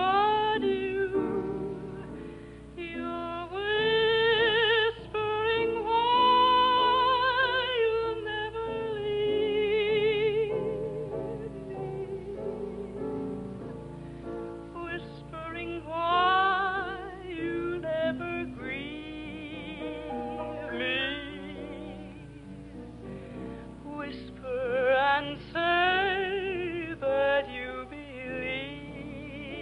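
A soprano voice singing in an operatic style with wide vibrato over instrumental accompaniment, in a narrow-band early-1950s radio transcription recording.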